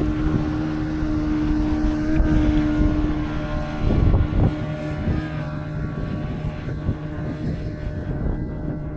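A river cruise boat's engine running steadily under way, a low even hum, with irregular rushing noise over it that surges about four seconds in.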